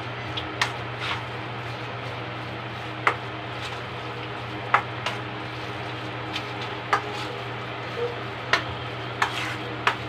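A spoon stirring a wet grated cassava mixture in a stainless steel bowl, with about ten irregular sharp clinks of the spoon against the metal bowl over a steady low hum.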